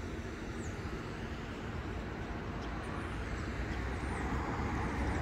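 Steady outdoor rumbling noise, growing slowly louder toward the end, with a few faint high chirps.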